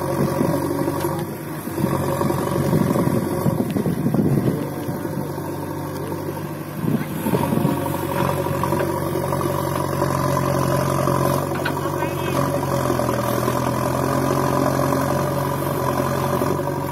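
JCB backhoe loader's diesel engine running steadily while the backhoe arm digs into the soil.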